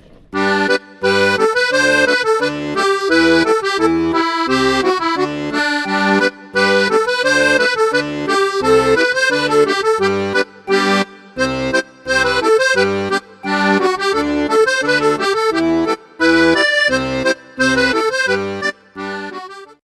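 Background music with many pitched notes over a regular, bouncing bass line; it cuts off suddenly near the end.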